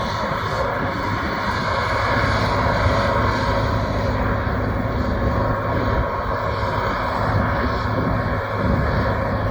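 Combine harvester running steadily: a constant engine drone with steady tones from the machinery and no change in speed.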